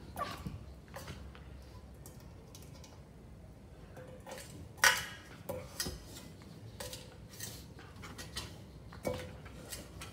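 Metal elephant figurine clinking and knocking as a beagle bites and paws at it: scattered irregular knocks, some with a brief metallic ring, the loudest about five seconds in.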